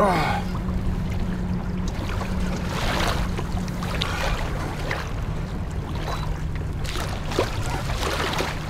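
Kayak moving on open water: a steady low hum with water washing along the hull, broken by a few short squeaks and clicks while a hooked fish is being fought on rod and reel.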